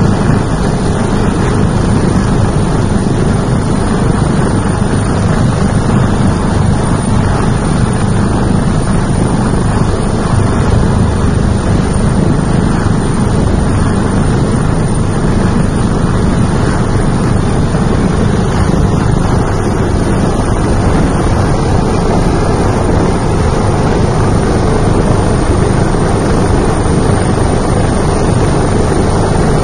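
Helicopter hovering at close range, its rotor and turbine engines running as a loud, steady noise, with rotor downwash buffeting the microphone and a thin high whine held throughout.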